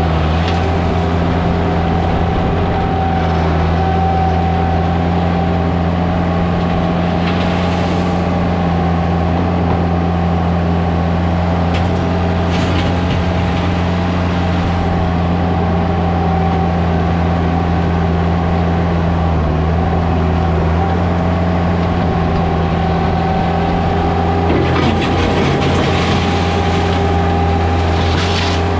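Skid loader engine running at a steady speed, with a few brief clanks or scrapes around the middle and near the end.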